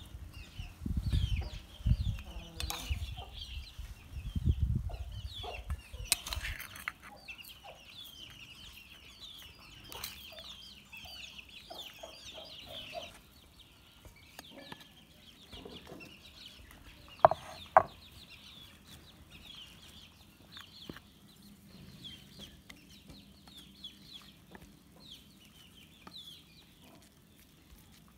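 Chickens clucking and chirping throughout, with a spoon scraping and clinking against a stainless steel bowl as rice filling is packed into a hollowed pumpkin. Low bumping in the first few seconds, and two sharp metallic clinks about 17 seconds in, the loudest sounds.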